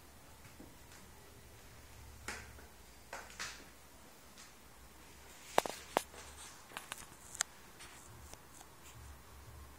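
Faint, scattered clicks and taps in a quiet room, about a dozen in all, with two sharper clicks a little past halfway.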